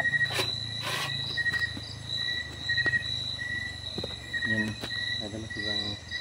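Night insects chirping steadily in a high, pulsing trill. Two sharp knocks come in the first second and a fainter one near the five-second mark.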